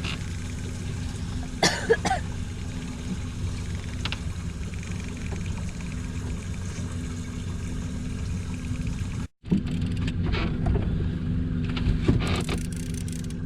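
Boat motor running steadily at trolling speed, a low even hum, with a couple of light knocks about two seconds in. The sound cuts out for a split second about nine seconds in.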